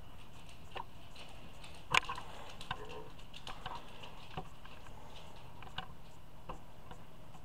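Scattered light clicks and knocks of small objects being handled and set down, with one sharper knock about two seconds in.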